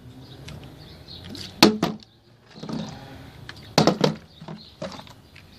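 Plastic bottle partly filled with water landing hard on a wooden deck in bottle flips: a thud with a quick second knock about a second and a half in, another double knock near four seconds as it lands and tips over, and a lighter knock near five seconds.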